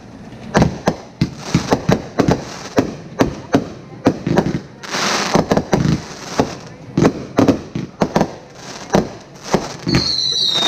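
Aerial fireworks bursting overhead in quick succession, about two or three sharp bangs a second. A hissing rush comes about five seconds in, and whistling tones falling in pitch start near the end.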